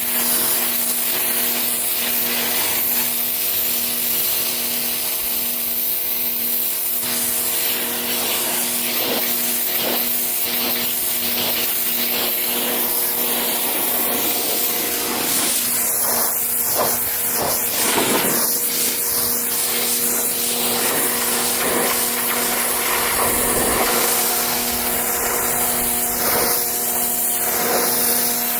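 A 2,500 PSI pressure washer spraying a jet of plain water, a steady hiss over the constant hum of its pump. The spray sound shifts and crackles through the middle as the jet moves across the fabric.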